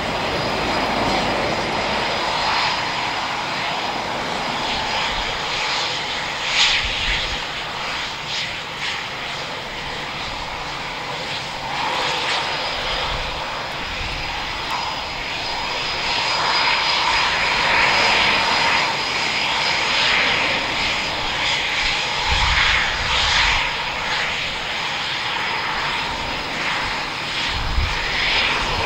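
Eurofighter Typhoon's twin jet engines running at taxi power as the fighter taxis: a steady rushing roar with a thin high whine over it, growing louder about halfway through.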